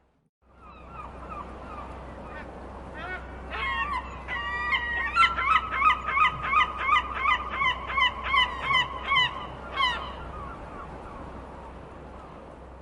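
Seagulls calling over a steady background rush: scattered calls build into a loud, rapid laughing series of about two to three calls a second, which stops about ten seconds in, leaving only the background noise.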